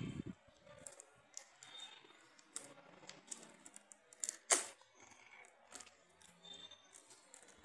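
Cellophane shrink-wrap on a smartphone box being cut with scissors and peeled off: irregular crinkles and small clicks, the sharpest about four and a half seconds in.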